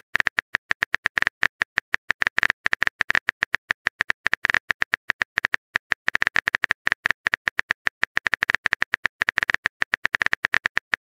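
Phone-keyboard typing sound effect from a texting-story animation: rapid, irregular clicks, several a second, one for each letter typed into the message box.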